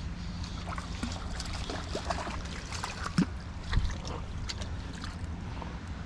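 A hooked perch being played and reeled in on a baitcasting rod. Irregular small splashes and clicks sit over a steady rumble of wind on the microphone, with two dull knocks a little past three seconds in.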